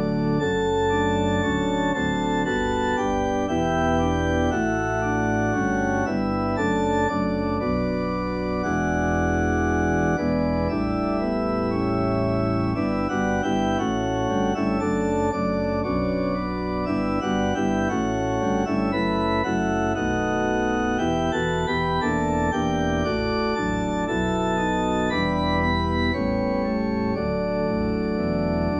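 Organ playing a hymn tune in sustained chords as instrumental accompaniment, with no singing.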